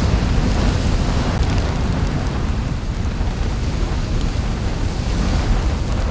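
Added sound effect of a volcanic eruption, not the real sound of the eruption: a steady deep rumble with a rushing hiss over it.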